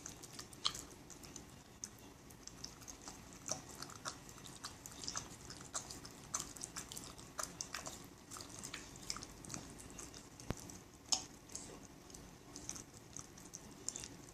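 Shiba Inu eating frozen sherbet: irregular wet smacking and chewing clicks, several a second, with a couple of louder ones.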